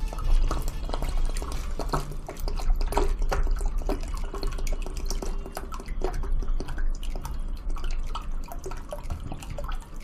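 Water being poured into a bowl, with continuous irregular splashing and dripping as the bowl fills up to the brim.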